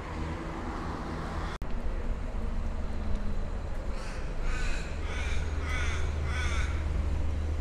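A crow giving a quick run of about five harsh caws, starting about four seconds in, over a steady low street rumble.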